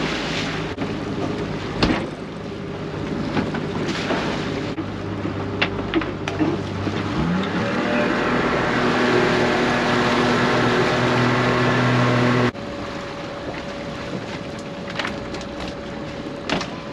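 Outboard motor of a small boat running under way, with water rushing along the hull and a few knocks of gear on deck. About seven seconds in the engine revs up and holds a steady, higher note, then drops back suddenly about twelve seconds in.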